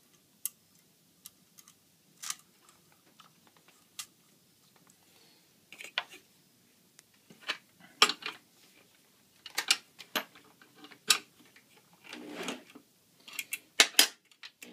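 Irregular small clicks and clinks as hands secure the cut end of copper magnet wire on spools mounted on a threaded-rod axle with metal flanges. The clicks come more often and louder in the second half.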